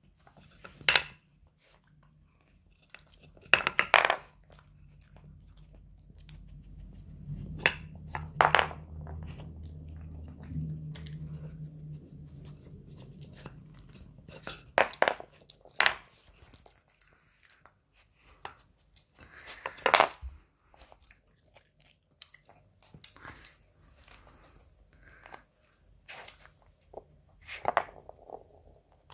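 A small dog nosing wooden pegs out of a wooden treat-puzzle board: a handful of sharp wooden knocks and clatters, with crunching as it eats the treats hidden underneath.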